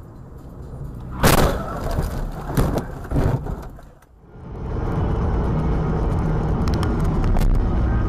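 Car collision: a loud crash about a second in, followed by a few more knocks and clatter. After a short break comes the steady road and engine noise of a car driving at speed.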